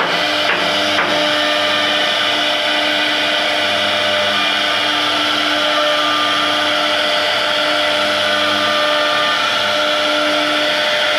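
CNC router spindle cutting wood: a steady, high whining hiss, with lower hums that change pitch in steps as the machine moves, and a few clicks in the first second.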